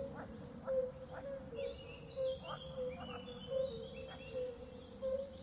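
Outdoor nature ambience: birds chirping, with a short low call repeating about twice a second.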